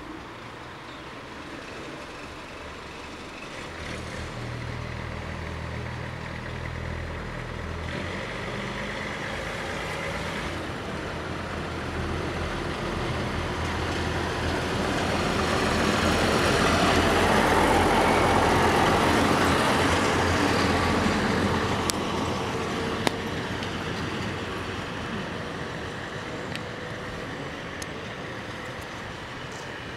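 Historic MAN diesel railbus pulling away from a standstill. Its engine picks up and rises in pitch as it accelerates, grows loud as it passes close, then fades as it moves off. A few sharp clicks from the wheels come just after it passes.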